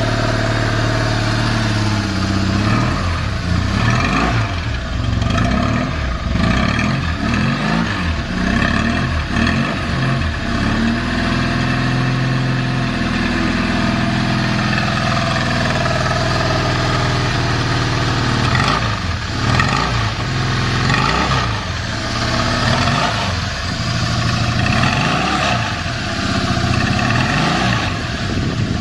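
BMW R1200C's boxer twin engine running, idling and being revved up and down repeatedly. The idle is steady, with no unusual noises from the engine.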